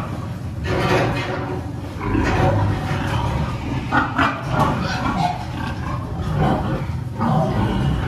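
A barn full of sows calling together, a loud continuous din of pig grunts and cries, with a sharp knock about four seconds in.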